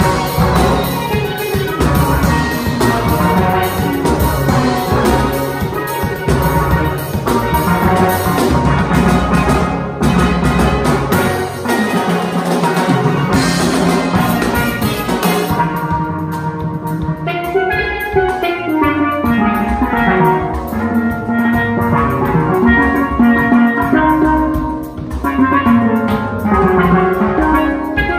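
Steelband playing a calypso live: many steelpans, from lead pans down to tall bass pans, with a drum kit keeping the beat. About halfway through the cymbals drop back and the pans' rising and falling runs stand out.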